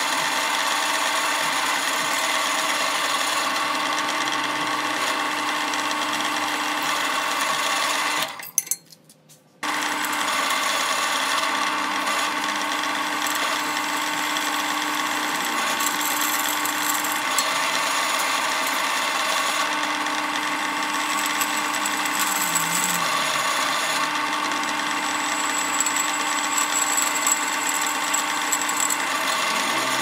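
Pedestal drill press running steadily, its motor giving an even hum with a high whine, as the bit drills through a steel latch plate. The sound cuts out for about a second roughly eight seconds in, then resumes.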